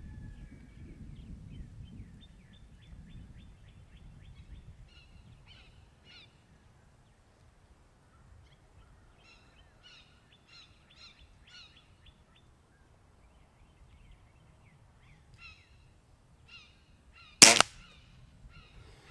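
Birds chirping in short repeated phrases; about seventeen seconds in, one sharp, loud report from a Weihrauch HW97K .177 underlever spring-piston air rifle firing a shot.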